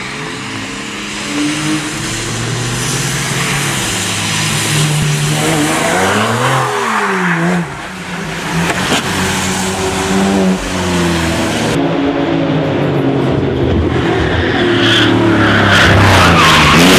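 Sports car engines, among them a Porsche 911, revving hard on a race track, their pitch climbing and dropping with throttle and gear changes, with one sharp rise and fall about six to seven seconds in. Tyres hiss on the wet track surface.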